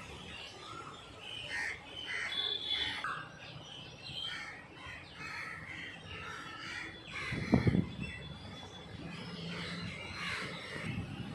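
Crows cawing, with other birds calling, in short repeated calls. A brief low thump about seven and a half seconds in.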